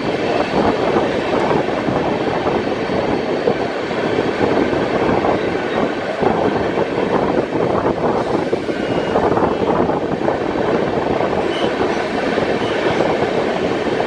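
Indian Railways passenger express running on the rails, heard from alongside its moving coaches: a steady, dense noise of wheels rolling on track.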